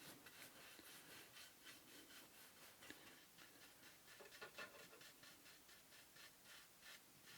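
Faint, quick rubbing strokes on wooden sun-shade slats, about four a second, as the wood is wiped down or brushed with paint by hand.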